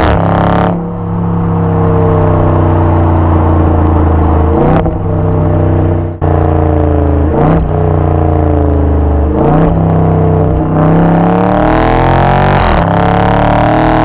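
Exhaust of a 2019 Dodge Charger R/T Scat Pack's 6.4-litre Hemi V8, heard right at the tailpipe, revving up and easing off repeatedly. The pitch climbs and then breaks off sharply several times as the eight-speed automatic changes gear.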